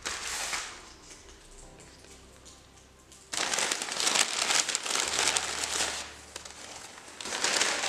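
Packing material in a shipping box crinkling and rustling as it is handled, in two main stretches: briefly at first, then louder from about three seconds in, with a short burst near the end.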